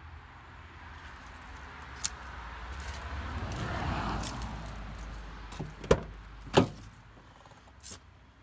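Ford Ranger pickup's driver door being opened: a rustling swell of handling noise, then two sharp clacks from the handle and latch as it unlatches and swings open, with a lighter click near the end.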